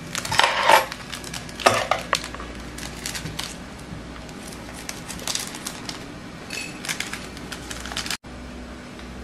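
Dishes and utensils clattering: a couple of louder knocks near the start and again under two seconds in, then scattered light clinks, over a steady low hum.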